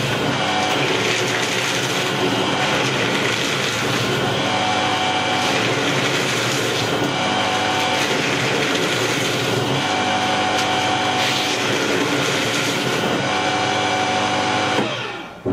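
Heavy-duty EBA 5141 P5-security micro-cut paper shredder running under load, chewing through stacks of paper fed in one after another, its sound swelling as each new stack goes in. It cuts off near the end once the paper has all gone through.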